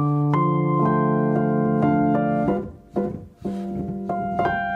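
Piano music playing held chords, with a brief gap about two and a half seconds in before the notes return.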